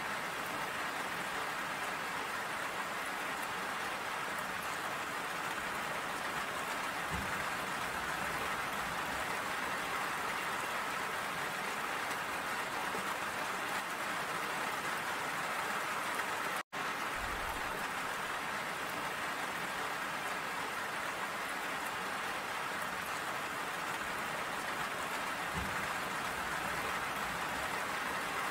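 Steady, even rain falling, with a split-second break to silence a little past the middle.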